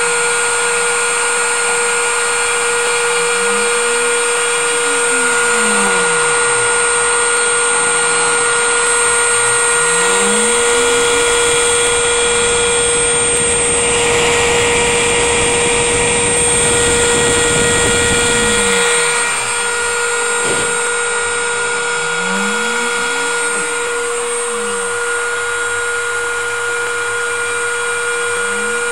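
Homemade CNC machine running: a steady high-pitched spindle-motor whine, with the stepper motors' lower whine rising and falling in pitch every few seconds as the axes speed up and slow down. A rougher, noisier stretch in the middle stops abruptly about two-thirds of the way through.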